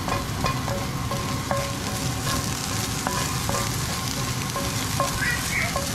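Minced turban snail meat sizzling in hot olive oil in a frying pan, stirred with a wooden spoon that scrapes and taps against the pan.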